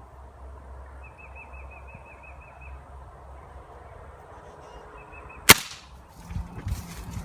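Crosman Valiant Nitro Piston .177 break-barrel air rifle firing a single sharp shot about five and a half seconds in. Before the shot a bird gives a quick chirping trill; after it come low knocks and rustling of handling.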